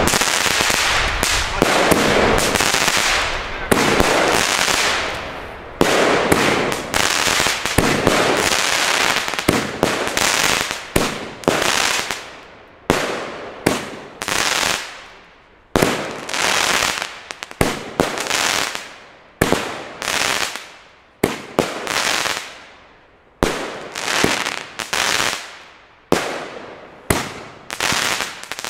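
Pyroland 'Geiler Macker' firework battery firing: for about the first twelve seconds the shots come thick and fast, overlapping into a continuous run of bangs and crackle, then they thin to single shots about one a second, each bang trailing off over roughly a second.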